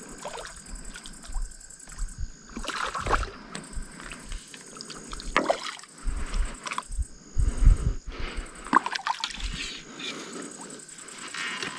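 Water sloshing and trickling with irregular knocks and bumps from handling, over a steady high chirring of night insects.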